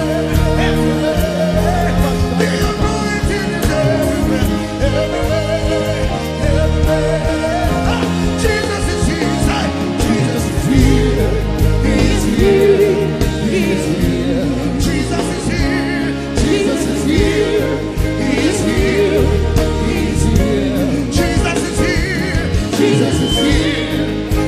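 Gospel worship music: singing with a wavering, held melody over a band with a steady beat and a strong bass line.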